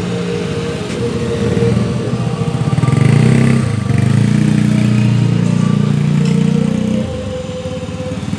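Motorcycle engine running close by, getting louder about two seconds in and dropping back about seven seconds in.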